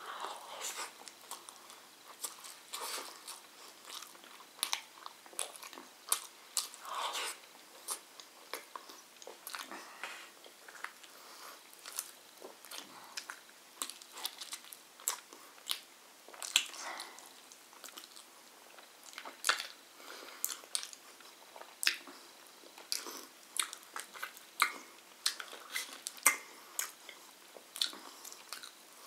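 A man chewing and biting mouthfuls of flatbread, rice and roast chicken eaten by hand, with many short sharp mouth clicks at an uneven pace.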